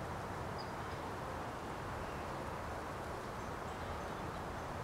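Steady outdoor background noise with a few faint, brief high chirps of birds.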